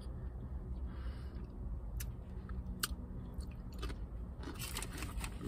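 Close-up chewing of food, with a few sharp crunches about two and three seconds in and a quicker run of them near the end, over a steady low rumble.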